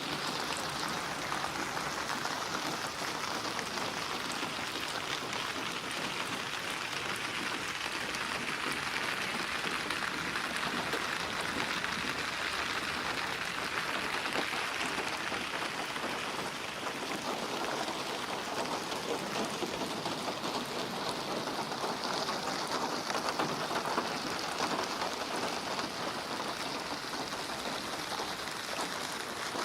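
Steady rain falling on a surface, an even dense patter of drops that neither builds nor dies away.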